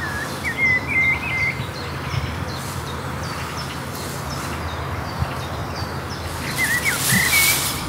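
Small bird chirping in short quick phrases, once about a second in and again near the end, with a brief rush of hiss near the end.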